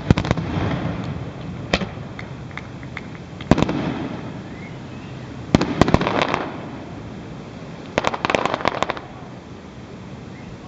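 Aerial fireworks shells bursting: single bangs near the start, just under 2 s in and about 3.5 s in, then two quick volleys of several reports, one around 6 s and one from about 8 to 9 s, each trailing off in a crackling rumble.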